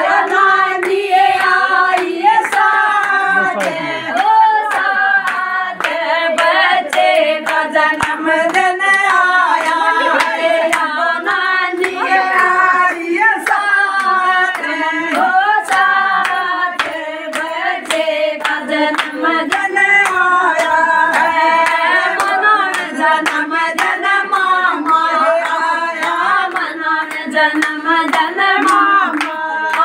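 A group of women singing a Haryanvi devotional bhajan together, clapping their hands to a steady beat.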